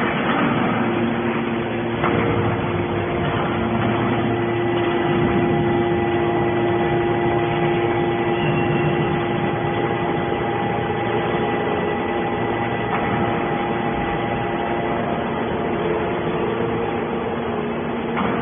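Aluminium-can baler's machinery running with a steady hum and a few faint clicks.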